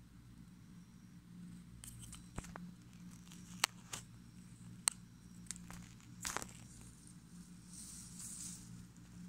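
Footsteps through grass and weeds: irregular sharp clicks and short crackling rustles as a leashed Shiba Inu and its walker move about, over a faint steady low hum.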